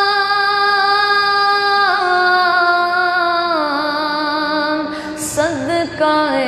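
A boy's solo voice singing a long, drawn-out note of a devotional durood o salam (naat) recitation. The note is held steady, then steps down in pitch twice, with a short break near the end before the line goes on.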